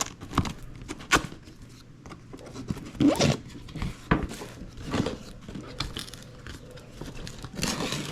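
Cardboard packaging being opened and handled: irregular taps, scrapes and rustles as the flaps and inner tray are worked loose.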